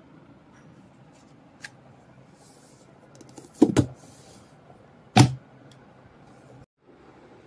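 A paperback book handled on a hard tabletop: a loud double knock about three and a half seconds in as it is laid down, then a single knock about a second and a half later.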